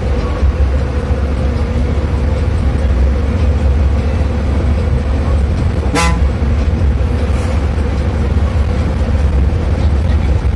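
Bus engine and road noise heard from the driver's cabin, a heavy steady drone, with a short horn blast about six seconds in.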